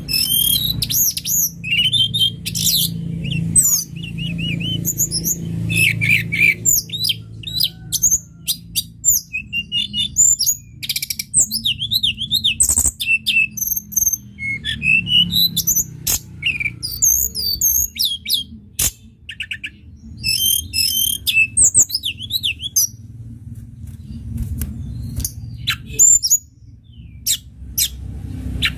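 A tledekan gunung songbird singing a long, varied song of rapid high chirps, trills and zig-zagging whistled notes with hardly a pause, over a steady low hum.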